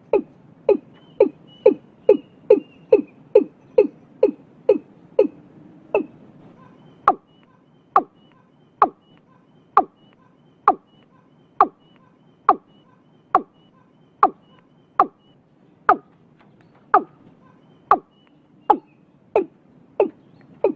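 Watercock calling: a long series of short notes, each dropping sharply in pitch, about two a second at first, then after a brief pause about six seconds in, slowing to roughly one a second.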